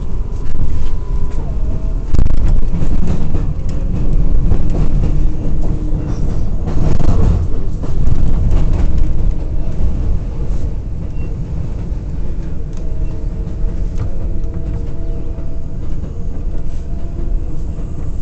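R188 subway car in motion, heard from inside the car: a loud steady rumble of wheels on rail with scattered clacks and a steady motor whine.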